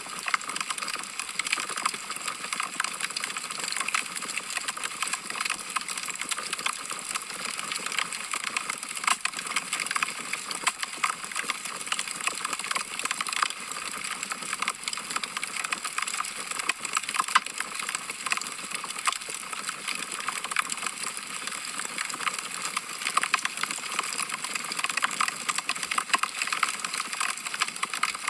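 Wood logs burning in a fireplace, crackling steadily with many small quick pops over a soft hiss.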